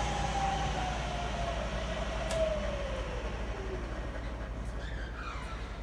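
Bridgeport vertical mill's 2 hp three-phase spindle motor coasting down after being switched off, its whine falling steadily in pitch over about four seconds. A single sharp click a little over two seconds in.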